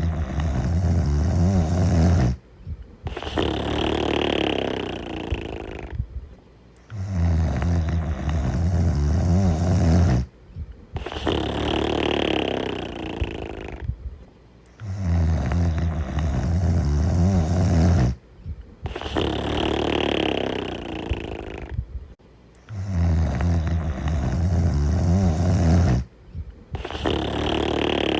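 Snoring of a sleeping TV-series character, repeating in an even cycle about every eight seconds. Each cycle has a low, rattling snore that cuts off sharply, then after a short break a longer, breathier, higher sound, then a brief pause.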